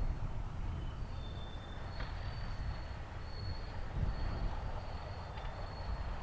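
Centercab diesel locomotive and freight train moving along the rails, a steady low rumble. Faint, short high-pitched squeals come and go over it.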